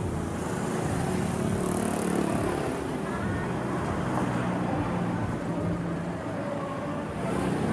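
Road traffic on a street, with a car driving past close by; the noise is steady throughout.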